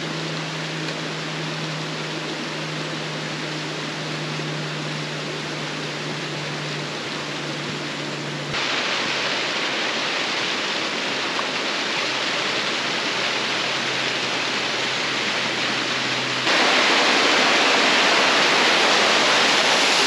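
Steady rushing of a waterfall and its stream in full flow. It gets suddenly louder in two steps, about eight seconds in and again about sixteen seconds in.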